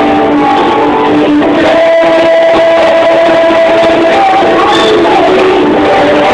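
A group of children singing a worship song along with an accompanying music track with guitar, holding long notes.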